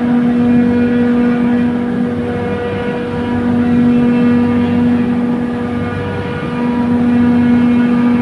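Trane chiller compressor running with a loud, steady hum and a machine whine, the hum swelling and fading every few seconds.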